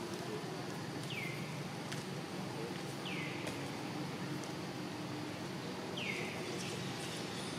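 A bird calling three times, each call a short whistle falling steeply in pitch, spaced two to three seconds apart, over a steady low background rumble.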